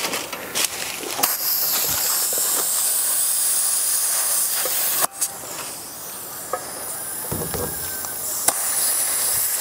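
Compressed air hissing steadily from a portable air tank's hose chuck held on a tyre valve stem, air leaking out around a worn chuck end. A click about five seconds in, after which the hiss is quieter.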